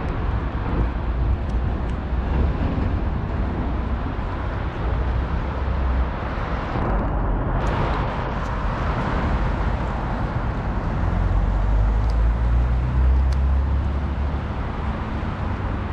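Outdoor city street ambience: a steady wash of traffic noise with a strong low rumble. It swells as vehicles pass, about halfway through and again near the end.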